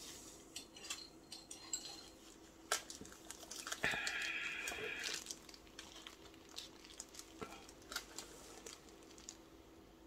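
Gloved hands handling resin-craft tools and a silicone mixing cup on a worktable: scattered small clicks and taps, with about a second of rustling or scraping around four seconds in.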